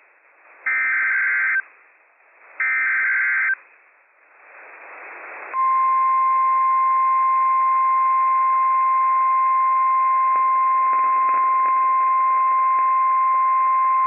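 NOAA Weather Radio Emergency Alert System broadcast heard through a receiver. It opens with two bursts of rapid warbling SAME digital header data, about a second each. Receiver hiss then builds, and about five and a half seconds in the steady 1050 Hz warning alarm tone starts and holds, signalling a warning-level alert.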